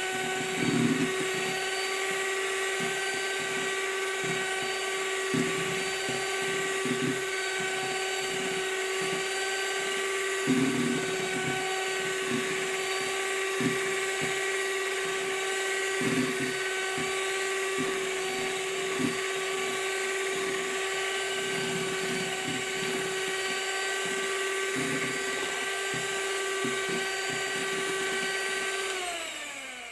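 Handheld electric mixer running at a steady whine as its beaters whip egg whites into meringue in a plastic bowl, with irregular knocks of the beaters against the bowl. Near the end the mixer is switched off and the whine falls in pitch as it winds down.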